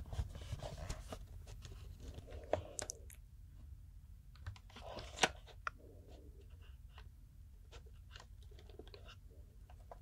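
Close-miked clicks, taps and crinkles as a box of planet-shaped chocolates is handled and a chocolate sphere is taken out of its plastic tray. The sharpest clicks come about two and a half and five seconds in.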